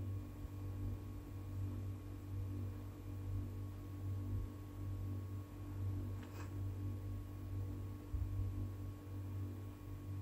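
Steady low electrical hum with a few faint steady tones above it, and one faint click about six and a half seconds in.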